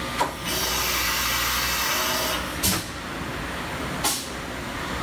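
Fadal VMC 4020 CNC vertical mill changing a tool: a sharp clunk, a hiss of compressed air lasting about two seconds, then two more clunks, over the steady hum of the running machine.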